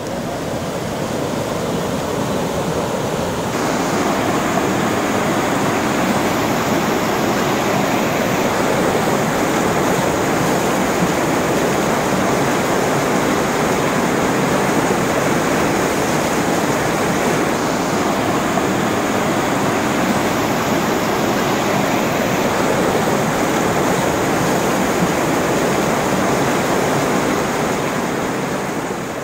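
Fast river water rushing and churning through a narrow channel as white water, a steady loud rush that fades out near the end.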